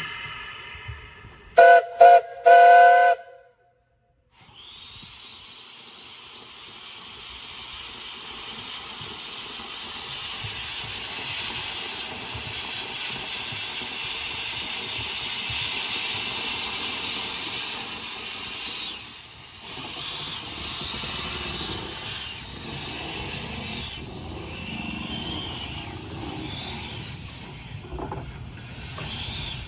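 Steam whistle on the 0-4-0 saddle-tank locomotive No. 1 'Henry Clay' giving three short blasts about two seconds in, the last one a little longer: the usual signal that a train is about to back up. Then a long, loud hiss of steam from the open cylinder cocks as the engine starts moving, easing off near the end into softer, uneven puffs.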